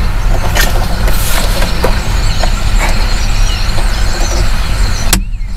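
Slip-joint pliers squeezing a plastic shift cable bushing onto a Corvette's shifter linkage, with a few small clicks and a sharp click about five seconds in as the bushing snaps into place. Under it runs a loud, steady low rumble on the microphone.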